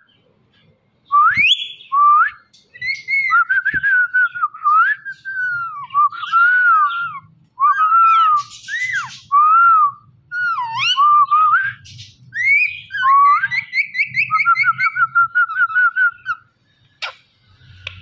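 Indian ringneck parakeet whistling a long run of clear whistles that slide up and down, with a fast wavering trill near the end.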